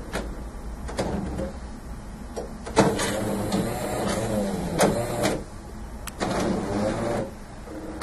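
Jura GIGA XJ9 bean-to-cup coffee machine working internally just after dispensing a cappuccino. A few sharp clicks come over a steady low hum, then two stretches of motor-driven whirring, the first about three seconds in and the second shorter, near the end.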